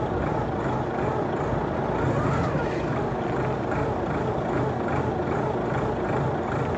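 Heavy diesel engine running steadily with a low throb, from the machinery working the container load.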